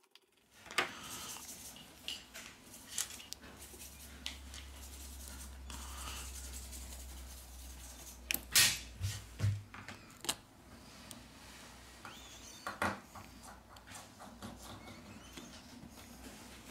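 Handling sounds of a precision screwdriver backing out small phone screws and tweezers picking them out: light scraping and rubbing with a scatter of sharp clicks of metal tool on screw and frame, the loudest a little past a third of the way in. A low hum runs under the first half.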